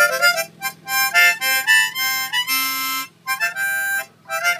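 East Top diatonic harmonica in C playing a quick, crisp tune: a run of short notes and chords, with a longer held note about halfway through.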